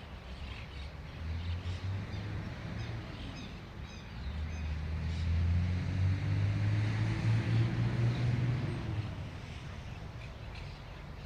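A motor vehicle passes by, its low engine and tyre noise swelling about four seconds in and fading again about nine seconds in. Birds chirp faintly.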